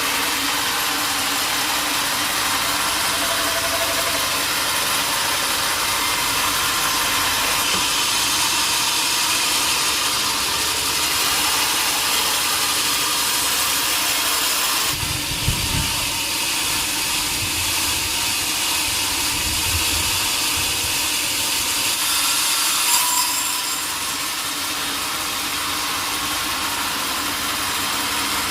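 Sawmill saw cutting through a large log: a steady hiss of the blade in the wood, with a brief low rumble about halfway through.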